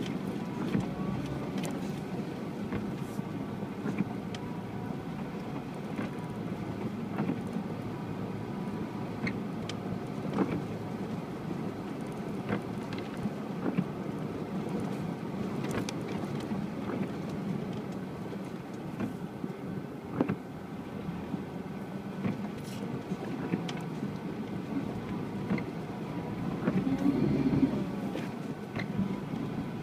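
UAZ Patriot off-road vehicle driving with its engine running steadily, with scattered knocks and rattles. The engine gets louder for a moment about 27 seconds in.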